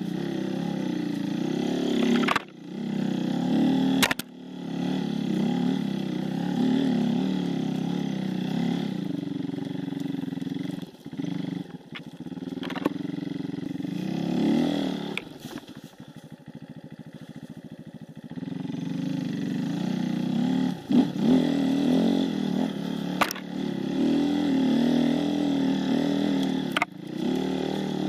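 Enduro dirt bike engine revving up and down while riding off-road, easing to a slow chugging low-rev run for a few seconds in the middle before picking up again. A few sharp knocks sound here and there.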